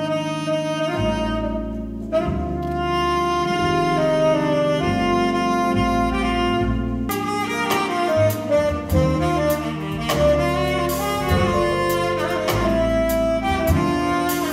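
Tenor saxophone playing a jazz line of long held notes over a double bass. From about seven seconds in, drums come in with cymbal and drum strokes.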